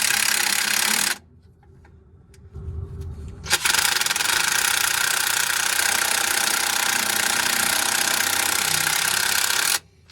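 Cordless DeWalt impact driver hammering as it runs the exhaust manifold fasteners down snug: one burst ending about a second in, then after a short pause a long run of about six seconds that stops sharply.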